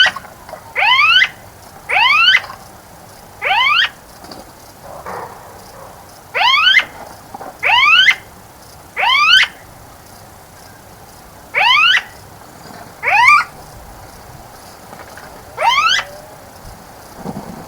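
A bird repeating a short, loud, rising call about ten times at uneven intervals, each call a quick upward sweep about half a second long.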